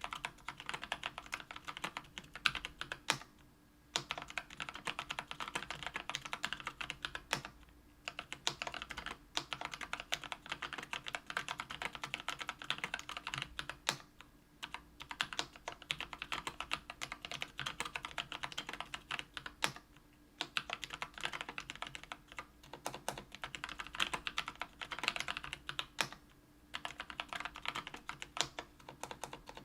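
Mechanical keyboard typing: Kailh Brown 50g tactile switches, lubed with Krytox 205g0, on an aluminum plate in a KBDfans Tofu 65% aluminum case. Fast, continuous keystrokes with a few short pauses between bursts.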